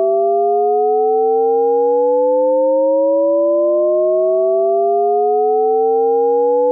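Shepard tone from Ableton's Max for Live Shepard Tones instrument: several octave-spaced sine tones gliding slowly upward together, the highest and lowest tones fading out and in, so the pitch seems to rise endlessly as an infinite riser.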